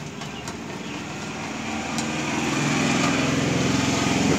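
A small engine running with a steady hum, growing louder over the first two seconds and then holding, with a light click about two seconds in.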